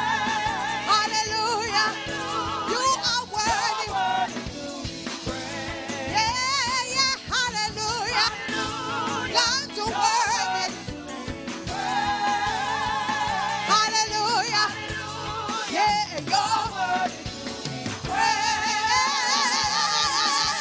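Gospel music: a singer holds long, wavering lines with a wide vibrato over sustained instrumental backing, in phrases with short breaks between them.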